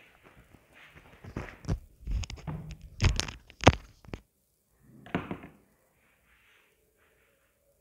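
A run of knocks and thuds, like things being handled or set down, packed between about one and four seconds in, with the sharpest knock near the end of that run and a shorter clatter a second later.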